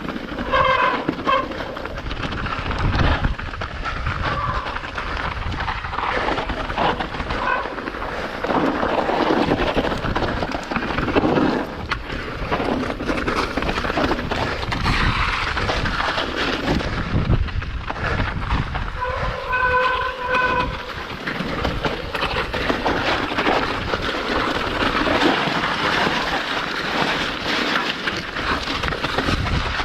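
Mountain bike riding fast down a rough trail: continuous rattle and clatter of tyres, suspension and chain over rocks, with rushing air. About two-thirds of the way through, a short pitched tone sounds in three quick pulses.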